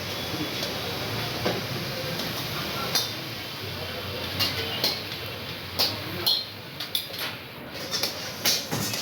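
Metal cooking utensils clanking and clinking against pans: a run of separate sharp strikes, coming more often in the second half, over a steady background noise.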